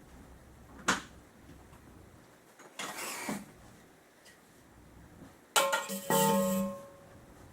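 Folding cot end pieces being taken apart: a sharp click about a second in, a short scrape around three seconds, then a louder clatter with a brief ringing tone near the end.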